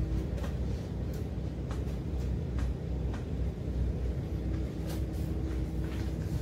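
Steady low drone of a car ferry's engines heard on deck, with a thin steady tone at the start and again in the last couple of seconds, and scattered light clicks.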